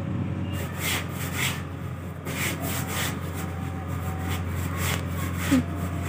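Heavy wet cloth blankets being handled and wrung, giving a series of irregular rubbing, swishing strokes over the steady low hum of a running washing machine.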